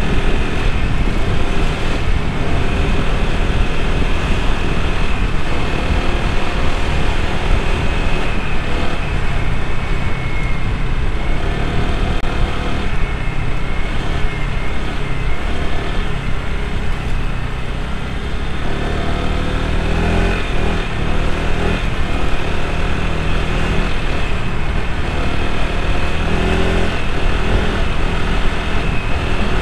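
Honda PCX scooter riding through city traffic: a steady rush of wind over the microphone mixed with the scooter's engine drone. The engine note comes through more clearly about two-thirds of the way in.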